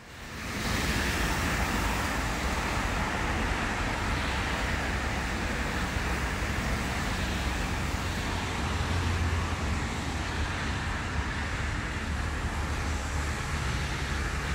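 Steady city street ambience with a low rumble of traffic, fading in at the start.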